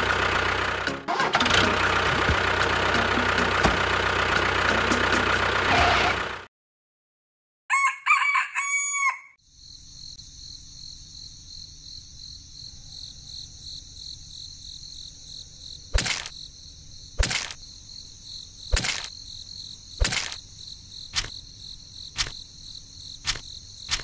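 A loud, dense stretch of sound that cuts off suddenly about six seconds in. After a brief gap, a rooster crows. Then a steady high-pitched background tone, with about seven sharp taps spaced a second or so apart.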